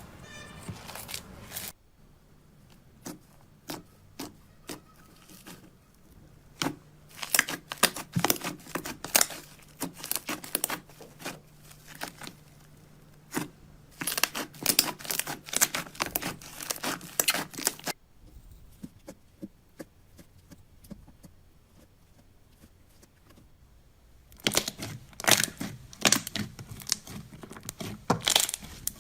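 Slime being squeezed and poked, giving dense runs of sharp crackling clicks in three stretches, with quiet pauses between.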